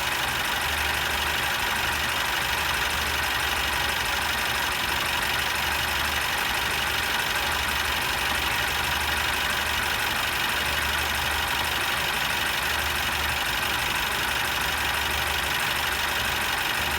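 Mercedes Sprinter M274 four-cylinder petrol engine idling steadily with a misfire on cylinder 3, which has low compression; heavy crankcase blow-by points to a worn engine needing a rebuild.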